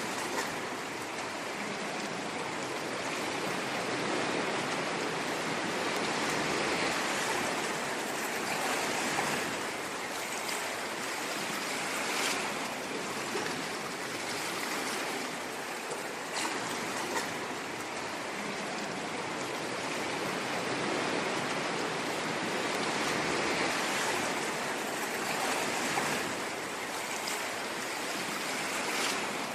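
Ocean waves washing on a shore, a continuous hiss of surf that swells and eases gently every few seconds.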